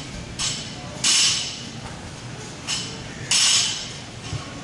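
Barbell power cleans, repeated about every two seconds: each rep brings a loud burst of noise lasting about half a second, with a softer onset shortly before it.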